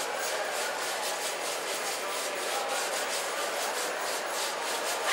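Folk dancers' shoes shuffling and stepping on a stage floor in a circle dance, an even scuffing at about three or four steps a second, with no music.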